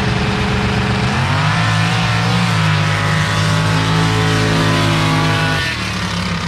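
Sand drag racer's engine running steadily, then revved up about a second in and held at high revs for about four seconds before dropping back near the end.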